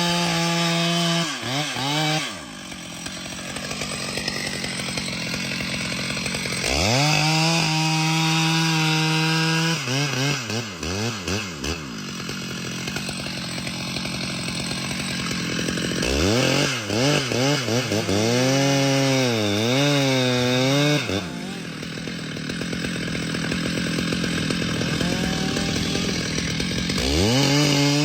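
Chainsaw cutting wood. The engine revs up to a high whine three times, about 7, 16 and 27 seconds in, and its pitch dips and wavers under load. Between the rev-ups it runs lower and rougher.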